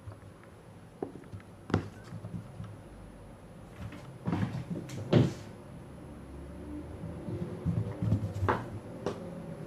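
A cat's paws thumping on a wooden floor as it runs and leaps: a few separate knocks, the loudest a landing about five seconds in.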